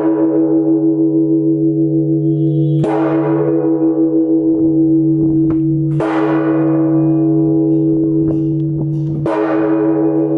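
The Phát Diệm Cathedral bell struck slowly, about once every three seconds. Each stroke rings on in a deep, wavering hum. This is the evening bell.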